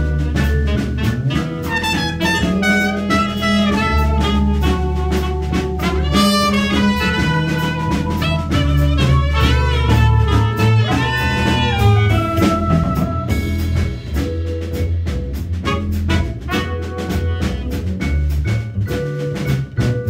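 Small jazz group playing live: the trumpet carries the melody over plucked upright bass, drum kit and vibraphone.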